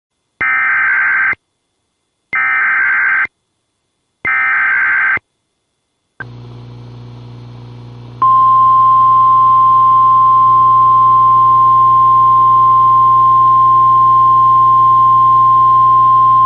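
Emergency Alert System SAME header: three shrill, warbling digital data bursts, each about a second long. A low steady radio hum then comes in, and about two seconds later the single long, steady, piercing weather radio attention tone sounds, signalling the start of a warning broadcast.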